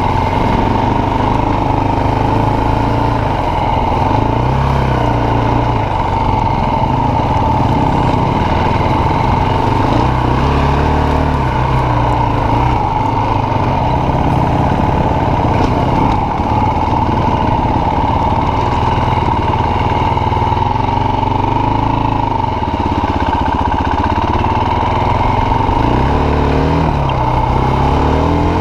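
Enduro motorcycle engine running while riding a dirt trail, its revs rising and falling again and again as the throttle is opened and closed.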